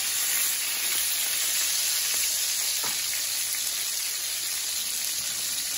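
Beef tenderloin steaks sizzling steadily in hot oil and garlic in a cast-iron skillet as they sear for a crust.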